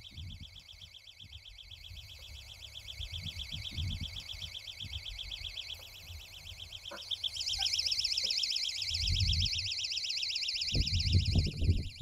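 Kief snake trap's electronic trigger alarm sounding a fast-warbling, high-pitched tone, the signal that a snake has set off the trap and is caught inside. The alarm gets louder about seven and a half seconds in, and low thumps and knocks come near the end.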